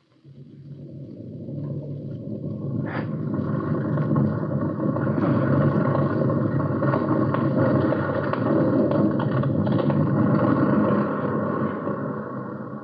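Radio-drama sound effect of an avalanche: a heavy rushing rumble that swells over the first few seconds, stays loud, and dies away near the end, with a sharp crack about three seconds in.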